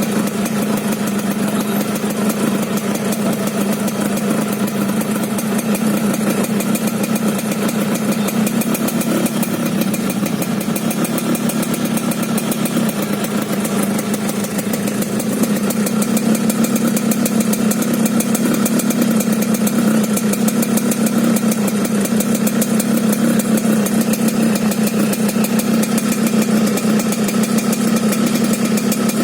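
Yamaha RX-King two-stroke single-cylinder motorcycle engine idling steadily with the rough 'ngorok' (snoring) exhaust note the bike is known for, a little louder about halfway through.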